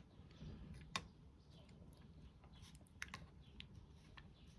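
Mostly quiet, with a few faint, sharp clicks, one about a second in and several more from about three seconds on. They come from a metal spoon tapping and scraping in a yogurt pot, along with quiet mouth sounds of eating yogurt.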